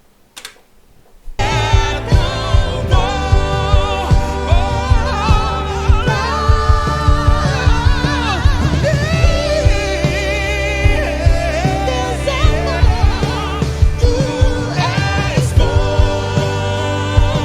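A gospel song from a livestream performance starts about a second in: a solo voice singing with vibrato over band accompaniment with strong bass and a steady beat.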